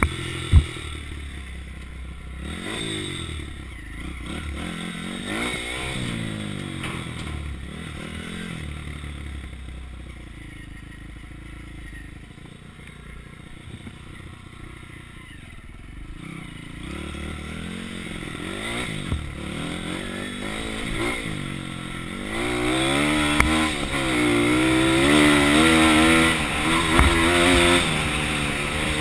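Pit bike engine revving up and falling back again and again as it is ridden along a dirt trail, heard from the rider's helmet. A sharp knock comes just after the start; the engine runs quieter through the middle, then louder and higher-revving from about two-thirds of the way in.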